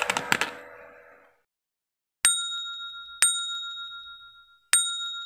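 Three bright dings of a notification-bell sound effect from a subscribe-button animation. Each starts sharply and rings out with a high, fading tone, the last after a slightly longer gap.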